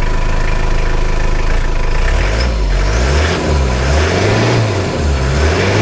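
2000 Toyota Hiace's 3.0-litre four-cylinder turbo diesel engine idling, then revved in a series of short blips starting about two seconds in, heard at the rear of the van with the engine still cold.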